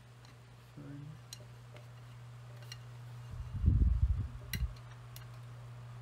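A few light metal clicks and ticks as a small screw is fitted and turned into the fan's motor housing, over a steady low hum. About three and a half seconds in, a louder dull rumble of handling lasts about a second.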